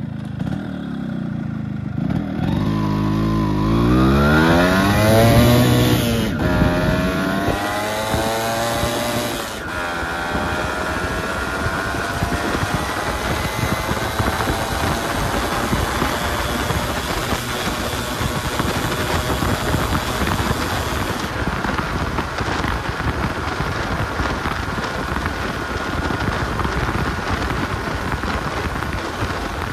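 Yamaha RX135's two-stroke single-cylinder engine accelerating hard through the gears. The pitch climbs steeply, drops at a gear change about six seconds in, climbs again, and after a second change near ten seconds rises slowly and then holds. Heavy wind rush on the microphone runs under it all.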